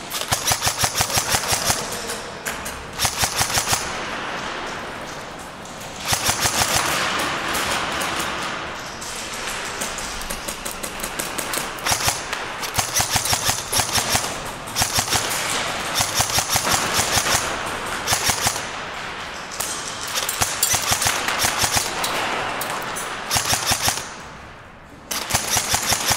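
Airsoft guns firing long and short bursts of rapid full-auto shots, one burst after another, with a brief lull near the end.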